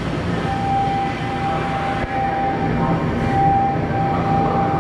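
Station platform noise beside the stopped Keisei Skyliner AE-series train: a steady hum and rush. Over it, a single high electronic tone sounds about half a second in and is held for roughly five seconds.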